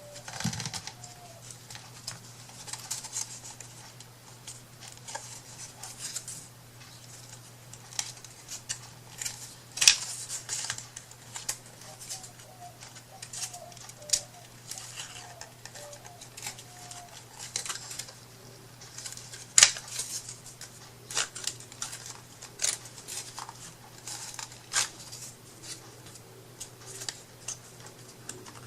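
Irregular clicks, taps and short rustles of small craft pieces being handled and fitted by hand, over a steady low hum.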